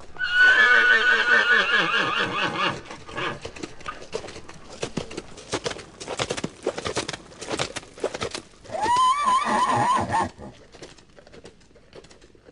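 Horses whinnying and galloping: a long, loud, quavering whinny falling in pitch, then a run of hoofbeats, and a second whinny about nine seconds in.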